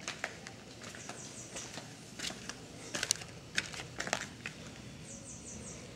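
Faint scattered taps and scuffs, sharpest around the middle, with two short runs of quick high chirps, about a second in and near the end.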